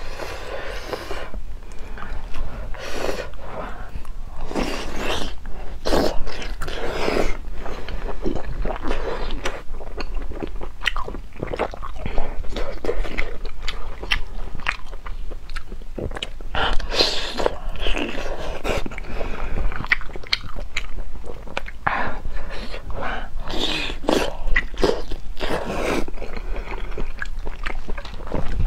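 A person eating chewy hot pot intestines close to a lapel microphone: wet chewing and slurping with many short clicks and smacks.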